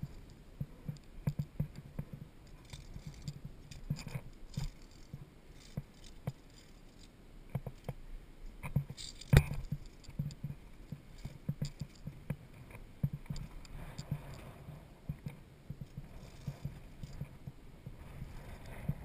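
Climbing boots stepping on limestone and loose stones, about two steps a second, with via ferrata carabiners and lanyard clinking against the steel cable. One sharp knock about nine seconds in is the loudest sound.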